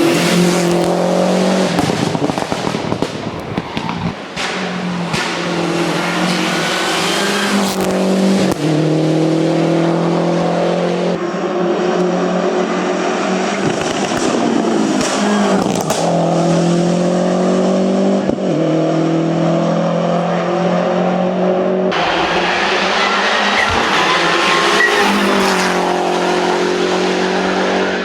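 Lancia Delta Integrale's turbocharged four-cylinder engine at full throttle, heard from inside the cabin. Its pitch climbs and drops repeatedly as the driver goes up and down the gears, with occasional sharp cracks.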